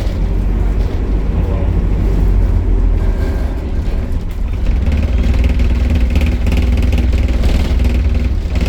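Optare Solo bus's diesel engine running, a steady low drone, with a steady tone and a brighter hiss joining about five seconds in.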